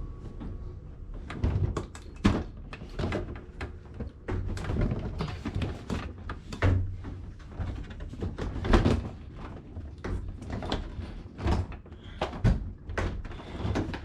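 Irregular clunks and thumps, a dozen or more, over a low rumble: a heavy water softener on a stair-climbing dolly being shifted and handled.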